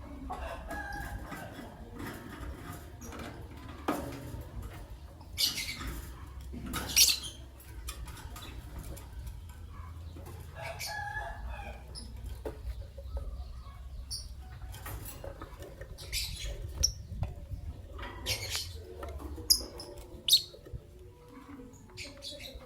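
Lovebirds, a green masked lovebird and an albino, calling with short, shrill chirps and squeaks at irregular intervals, with a few lower chattering calls, over a steady low hum.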